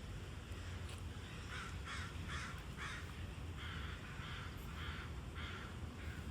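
A bird calling repeatedly: about eight short calls in two runs of four, over a low steady rumble.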